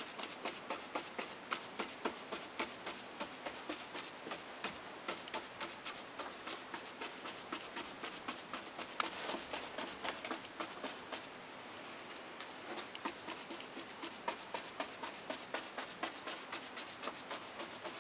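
A large round paintbrush punching paint onto a fascia board in quick dabbing strokes: a run of soft taps and brushing, about four a second, with a short pause about twelve seconds in.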